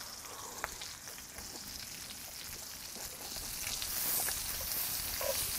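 Beef intestines sizzling in a hot frying pan: a steady frying hiss that grows louder about three and a half seconds in, with a few faint clicks.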